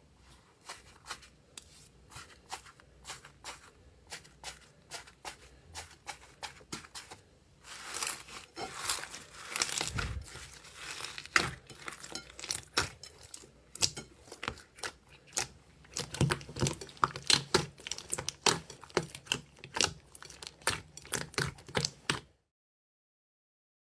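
Slime being squeezed and pressed by hand, giving a run of small sticky clicks and pops. They come about twice a second at first, grow much denser about a third of the way in, and cut off abruptly near the end.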